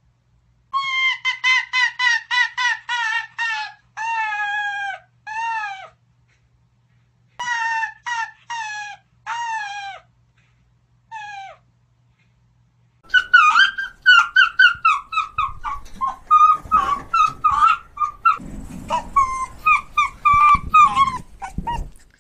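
Arctic fox barking: a quick run of about ten short, high yaps, each falling slightly in pitch, then a few longer drawn-out calls in bursts with pauses between. About 13 seconds in, a noisier recording follows: rapid chattering yelps over low background noise.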